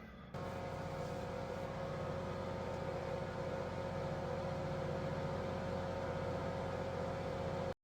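An engine running steadily, with a constant whine over a low pulsing drone. It cuts in abruptly just after the start and stops dead near the end.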